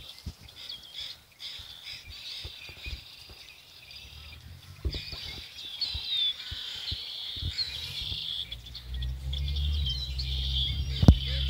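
Small birds chirping and twittering on and on in high, quick calls. A low rumble builds from about halfway, and there is one sharp knock near the end.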